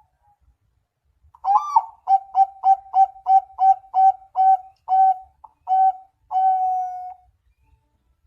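Zebra dove (perkutut) cooing. A rising opening note is followed by a run of about ten short, even coos, some three a second, ending on one longer held coo.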